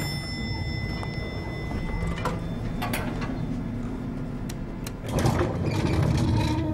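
Lift sounds: a low steady hum, with the lift's sliding doors opening about five seconds in.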